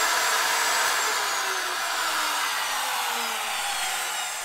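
Table-mounted router's motor whining, its pitch falling steadily as it coasts down after being switched off at the kick switch.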